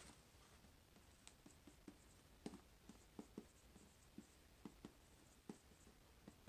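Faint, irregular scratching and ticking of a felt-tip marker writing on a white board.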